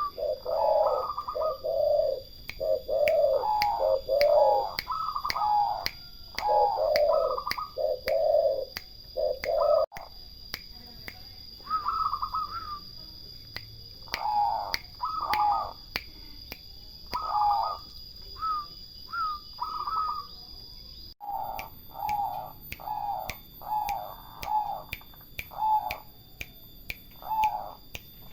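Doves cooing in repeated phrases of short, rolling notes, with a regular ticking about twice a second behind them.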